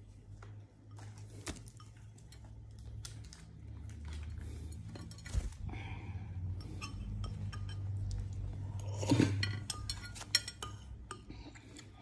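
Scattered light clinks and taps of cutlery and dishes on a dinner table, over a low rumble, with a busier cluster of clinks about nine seconds in.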